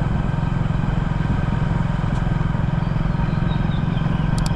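A vehicle engine running steadily while driving, with an even hum that does not rise or fall.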